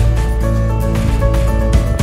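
Background music with a strong, steady bass.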